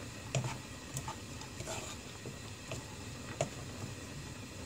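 Spatula stirring minced vegetables in a nonstick frying pan: irregular soft taps and scrapes against the pan about every half second, over a steady low hiss.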